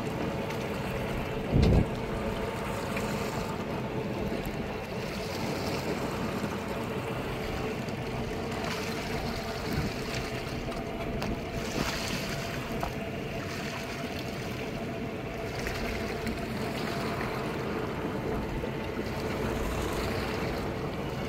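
Fishing boat's engine and machinery running steadily, with wind and sea water washing along the hull; one short low thump about two seconds in.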